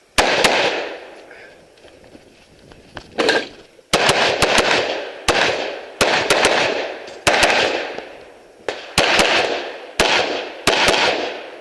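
AR-15 rifle in .223/5.56 fired in quick pairs and short strings, about twenty shots, each followed by a long echo that fades before the next group.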